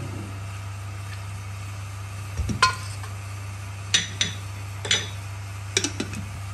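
Steel ladle clinking against a metal karahi holding melted desi ghee: a handful of sharp metallic clinks from about two and a half seconds in, over a steady low hum.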